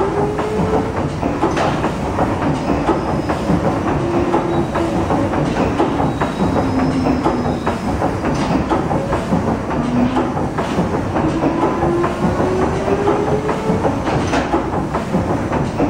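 Rankin & Blackmore triple-expansion steam engine running steadily, a continuous clanking and rattling of its cranks and valve gear with scattered sharper knocks and faint rising whines.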